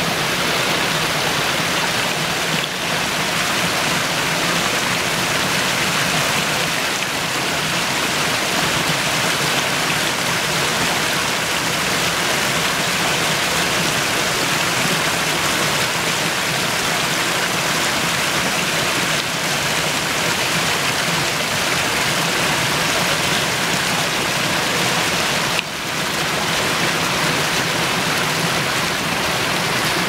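Water of a small mountain stream rushing and splashing over rocks in little cascades, a steady, even rush.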